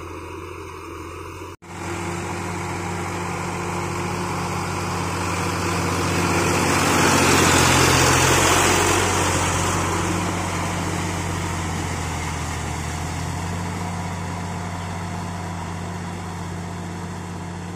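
Sonalika diesel tractor engine running steadily under load as it drags cage wheels and a puddler through wet paddy mud. The sound cuts out briefly about a second and a half in, then grows louder and noisier in the middle as the tractor is right alongside, before settling back.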